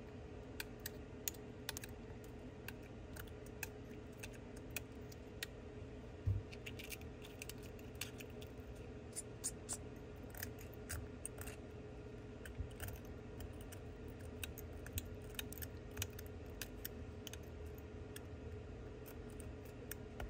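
A hobby knife blade scraping and prying shattered back glass off an iPhone 12 Pro Max: a run of irregular sharp clicks and ticks as glass fragments break away, with one duller knock about six seconds in.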